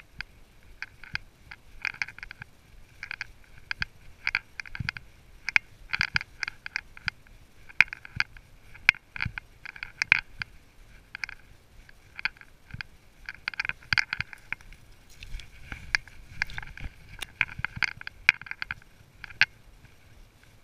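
Horse walking along a leaf-covered trail, its bridle and tack clinking and rattling in short clusters about once a second in time with its stride, over soft hoof falls.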